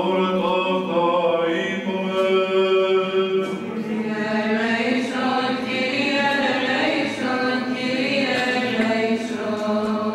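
Byzantine chant: a sung melody moving over a steady held low note, the ison drone.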